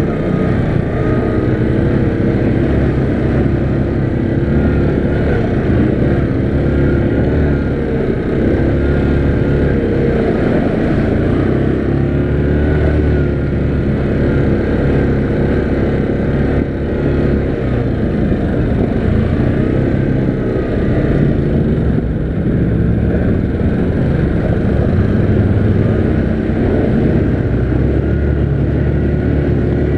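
Yamaha Grizzly 700 ATV's single-cylinder engine running while riding, its pitch rising and falling with the throttle.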